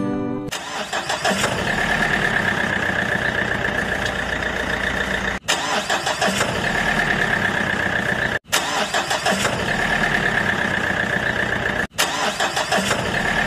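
Vehicle engine sound effect running steadily, a rough rumble under a wavering high hum. It cuts out for an instant three times where the audio is spliced.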